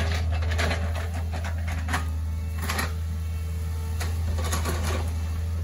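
Hitachi ZX48U mini excavator's diesel engine running steadily while it digs, with several short knocks and scrapes from the bucket and arm working the soil.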